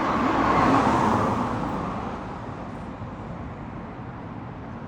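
A car passing on the road, its tyre and engine noise swelling to a peak about a second in and then slowly fading away.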